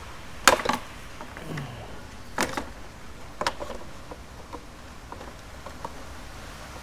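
Sharp metallic clicks and knocks as a brush cutter's shaft tube is worked into the clutch housing of a Kawasaki TJ53 engine. There are a few louder knocks in the first three and a half seconds, then lighter ticks.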